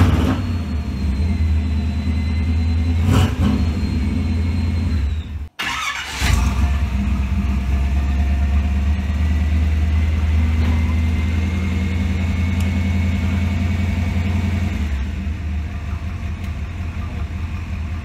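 Carbureted hot rod engine idling steadily while it is being tuned; the owner suspects the ignition timing is off. The engine note drops a little near the end.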